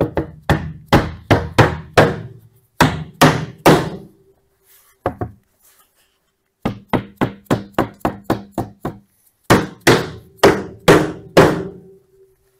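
A mallet striking a wooden knockdown cabinet in repeated blows, tapping the glued panels and joints home. The blows come in bursts, with a fast run of light taps in the middle and heavier strikes near the end.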